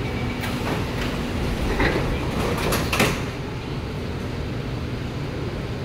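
Metro platform screen doors and train doors sliding shut, with a clatter of knocks about two seconds in and a louder knock about three seconds in, over a steady low hum.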